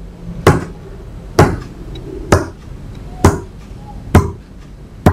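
Fingertip tapping on playing cards laid on a wooden table: six sharp, evenly spaced taps about one a second, each tap one count in a counting card trick.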